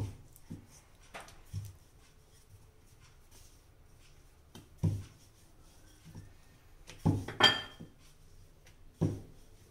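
Wooden rolling pin knocking and clattering on a marble rolling board while dough is rolled out and turned by hand: about seven separate knocks, the loudest a close pair about seven seconds in, one of them with a short ring.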